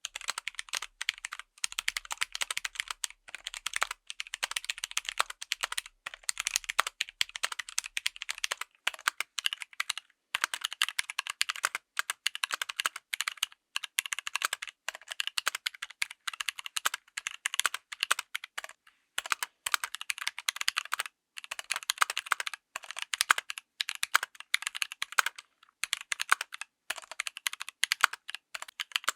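Typing on a full-size mechanical keyboard fitted with tactile switches: a rapid, continuous stream of keystroke clacks, with a few brief pauses.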